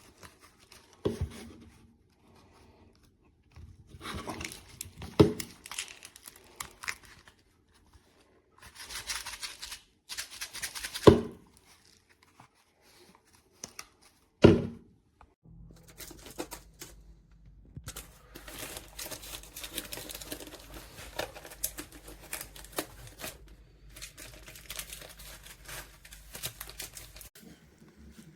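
Plastic packaging being torn and crinkled as it is handled, with four sharp knocks spread through, then a longer stretch of steady rustling in the second half.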